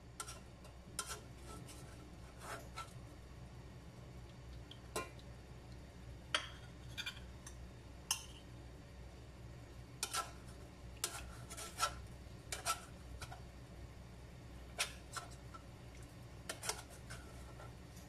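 Metal spoon clinking and scraping against an aluminium cooking pot and a plate while fish in coconut sauce is scooped out. There are a dozen or so short, irregular clinks, some with a brief ring.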